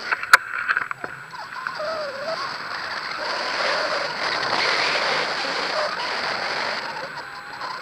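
Wind rushing over the camera microphone during a paraglider flight, swelling louder through the middle and easing off near the end, with a sharp click near the start.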